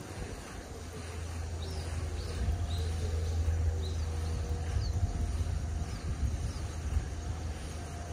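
Uneven low rumble on the microphone, building in the first second, loudest in the middle and easing near the end. A few faint, short, high chirps come over it in the first half.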